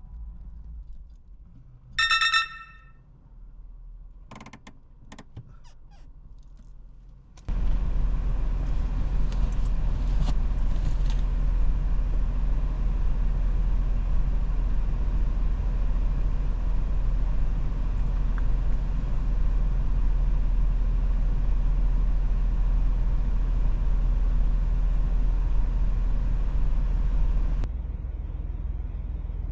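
Toyota Land Cruiser 70 driving on a forest road: a steady, loud rumble of engine and road noise comes in suddenly about seven seconds in and drops away near the end. Before it there is a short high tone and a few light clicks.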